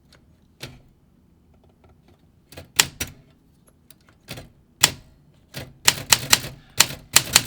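Olympia SM5 manual typewriter keys struck one at a time, a series of sharp typebar clicks that come faster in the second half. The keys have just been freed with mineral spirits, and the comma key is still sticking.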